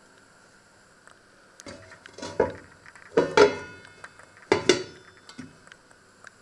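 Stainless steel pot lid clattering against the rim of the pan as it is handled and set on. There are a few metallic clanks with ringing between about two and five seconds in, the loudest about three seconds in.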